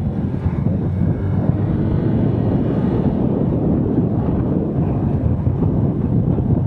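Steady low wind rumble buffeting the microphone of a helmet-mounted action camera on a motorcycle riding at highway speed, with engine and tyre noise mixed in.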